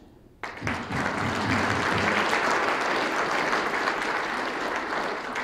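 Audience applauding. The clapping starts suddenly about half a second in and keeps up steadily.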